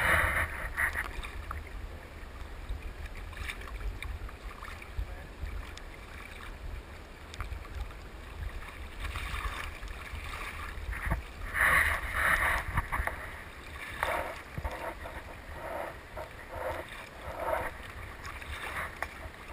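Water slapping and splashing against a plastic kayak hull in choppy open water, with wind rumbling on the microphone. The splashing comes in irregular bursts, louder around the middle of the stretch.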